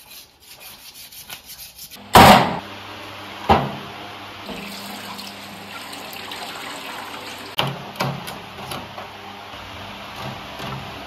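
Water running from a tap into a sink, with a loud knock about two seconds in, another soon after, and a few clatters later on, as the fish is washed.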